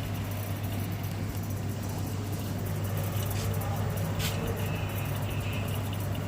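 Steady low machine hum, with a single sharp click about four seconds in.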